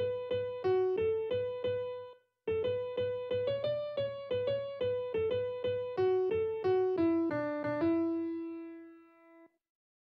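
Score playback of a transcribed vocal melody on a sampled piano-like sound, one note at a time. A short phrase and a brief pause are followed by a longer phrase that ends on a held note fading away.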